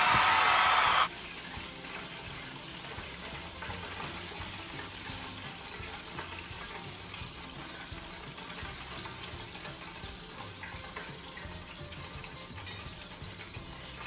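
Chicken sizzling in the hot oil of an electric deep fryer, a steady hiss with a few faint clicks of tongs as pieces are lifted out. Louder music cuts off suddenly about a second in.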